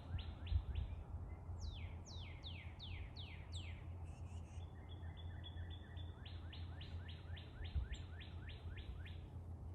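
A songbird singing: series of clear whistled notes, each sliding down in pitch, about four a second, broken in the middle by a run of short, level higher notes, then another long series of down-slurred notes. A low steady hum runs underneath.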